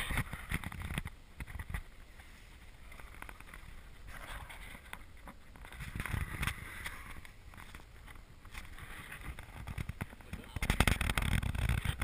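Camera handling noise: irregular rustling and knocking as the camera is moved about among nylon tent fabric, growing louder near the end.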